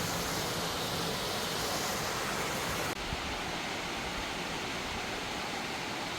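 Steady rushing of water in a mountain stream or waterfall. About three seconds in the sound changes abruptly and turns duller.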